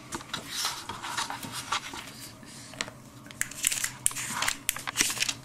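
Pages of a Bible being leafed through by hand: a run of irregular paper rustles and crinkles with small clicks.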